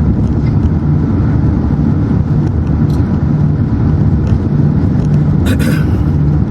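Steady low rumble of a car's engine and tyres heard from inside the moving car's cabin, with one brief sharper sound about five and a half seconds in.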